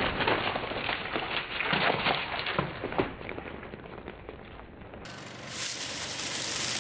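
Car tyre rolling on concrete over crushed plastic bottles of dry rice, with scattered grains crackling and clicking, fading over the first few seconds. About five seconds in, a brighter steady hiss of dry rice grains pouring out of a bottle and pattering onto a pile.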